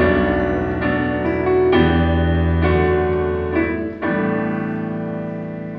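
Instrumental music with no singing: keyboard chords held and changing about once a second over a low bass line.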